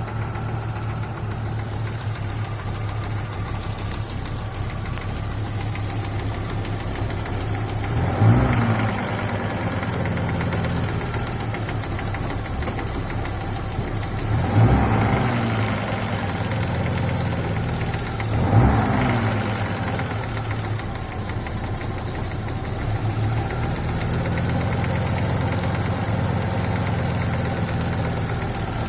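Audi 2.3 NG inline five-cylinder engine idling hot with a knock, blipped briefly three times. The knock appears only once the engine is warm, is loudest at the sump near the fourth cylinder and goes away above about 1400–1500 rpm; the owner suspects piston skirt slap.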